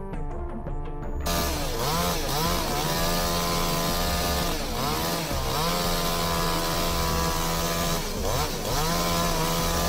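Chainsaw running at high speed, its pitch dipping and recovering three times as the chain loads up in the wood. Background music plays for about the first second before the saw comes in.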